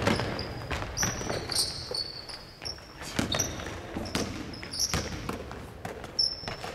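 Basketball bouncing on a wooden gym floor at irregular intervals, with sneakers squeaking on the floor in short, high-pitched squeals between the bounces.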